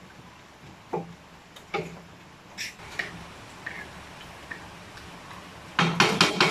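A spatula knocking and scraping against a metal wok while a stew is stirred: scattered light taps about a second apart, then a quick run of several louder knocks near the end.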